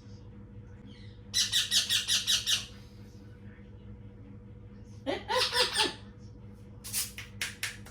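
Small green parrot squawking in a rapid pulsed run of about eight calls, then a second wavering squawk a few seconds later, while it is being hand-fed. A few sharp clicks come near the end.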